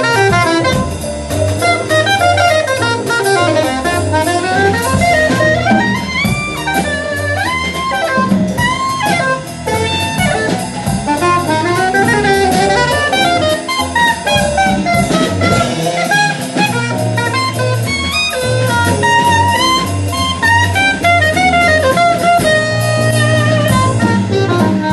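Soprano saxophone playing a wandering jazz melody line over drum kit and electric bass guitar.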